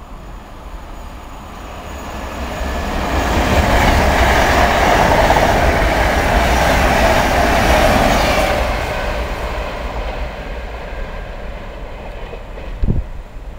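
Virgin Trains express passing through the station on the through line: the rush of its wheels on the rails builds over a couple of seconds, stays loud for about five seconds, then fades as it goes away. A short thump near the end.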